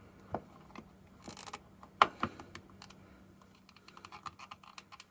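Small plastic and metal clicks and knocks of a cable tie being threaded through a battery-charger clamp and handled, with a short scrape just over a second in, a louder click about two seconds in and a run of quick light ticks near the end.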